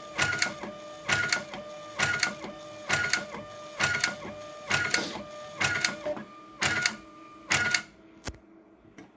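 Avery Dennison TTK textile label printer printing labels in a repeating mechanical cycle, about one cycle a second. The cycling stops near the end, followed by a single click.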